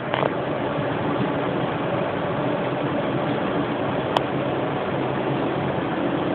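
Steady machinery hum with hiss, with a faint steady tone running through it. A short sharp sound comes just after the start, and a sharp click about four seconds in.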